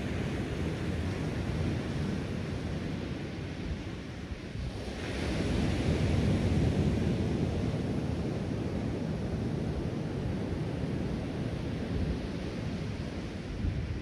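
Ocean surf washing onto a sandy beach, a steady rushing noise with wind rumbling on the microphone. A wave breaks more loudly about five seconds in, the loudest point, then eases back to a steady wash.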